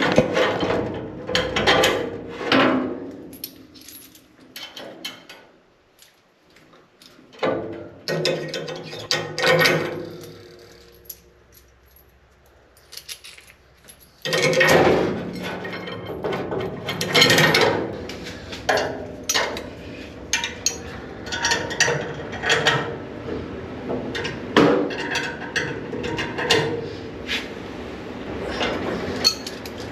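Steel bars, bolts and hand tools being handled and fitted: irregular metallic clanks, clicks and knocks, some ringing briefly. From about halfway a steady background noise runs under the clanks.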